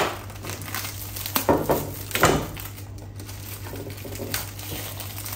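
Clear plastic wrap crinkling and tearing as it is peeled off a frozen pizza, in several irregular rustles that are strongest near the start and around two seconds in.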